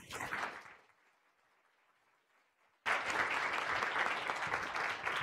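Audience applauding. The clapping fades out within the first second, drops away for about two seconds, then comes back abruptly and loudly about three seconds in.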